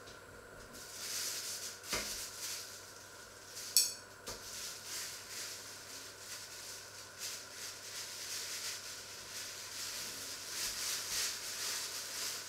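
Fat sizzling and crackling in a hot black steel pan on a ceramic hob. The sizzle sets in about a second in, with a click near two seconds and a sharp pop near four seconds.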